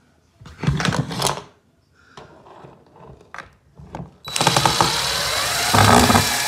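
Cordless drill-driver backing a screw out of a wooden skirting board. A short burst and a few clicks come first, then from about four seconds in the motor runs continuously, its whine rising as the screw comes free.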